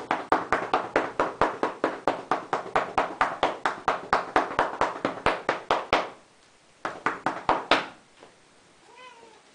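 Rapid, even pats on a cat's rump, about five a second for six seconds, then a short pause and a few more. Near the end the cat gives a faint short meow.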